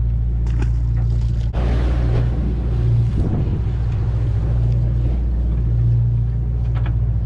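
Party boat's engine running with a steady low drone, under wind and sea noise, with a brief rush of noise about one and a half seconds in.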